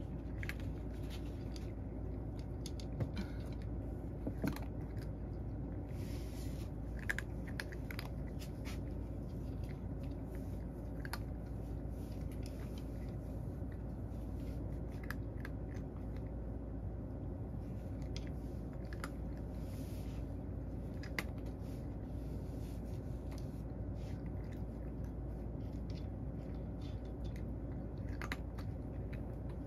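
A cat eating from a dish, crunching and chewing dry kibble in scattered, irregular crunches over a low steady hum.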